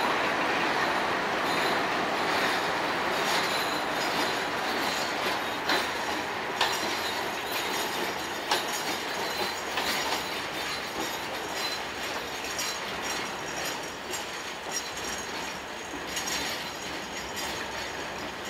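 Freight train rolling past on a station track: a steady rumble of wheels on rail with sharp clicks as the wheels cross rail joints and points, and a thin high squeal from the wheels.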